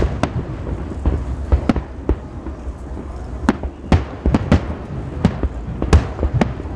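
Aerial fireworks shells bursting in an irregular run of sharp bangs, about two a second.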